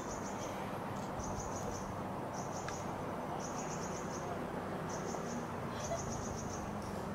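Insects chirping: short high trills, each a quick string of a few pulses, repeating about once a second over a steady low rumble of background noise.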